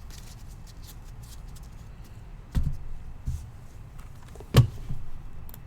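A few sharp knocks and clicks over a low steady hum, the loudest about four and a half seconds in.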